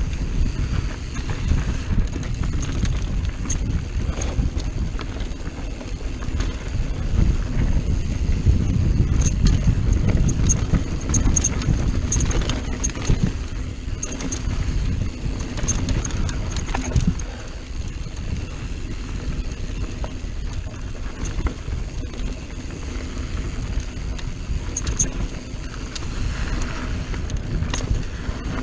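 Mountain bike riding down dirt singletrack: a steady rumble of tyres and wind on the microphone, with frequent rattles and clicks from the bike over rocks and roots.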